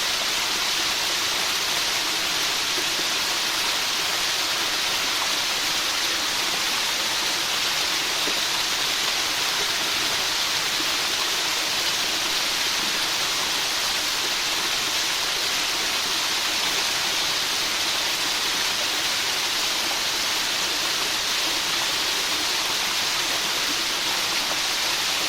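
Steady rain falling, an even hiss that holds one level throughout.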